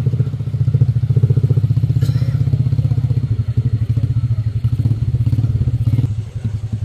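An engine idling steadily close by, with an even, fast low pulse. It eases off slightly near the end.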